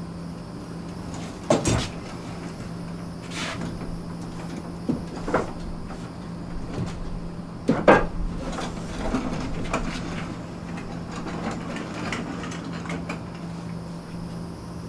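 A tall rack of cube storage units on heavy-duty wheels being pulled out of a tight wall recess: the unit knocks and bumps against the surrounding frame, and the wheels roll and scrape across the floor. The two loudest knocks come about a second and a half in and about eight seconds in, over a steady low hum.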